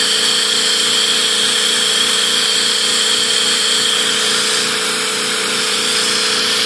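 Homemade five-disc micro Tesla turbine running at speed while driving a small electric motor as a generator: a steady high whine over a rushing hiss, dipping slightly about five seconds in.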